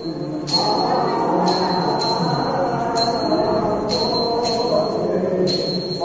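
Temple bell ringing in uneven strokes about once a second, over a steady din of music and voices during the deity's procession.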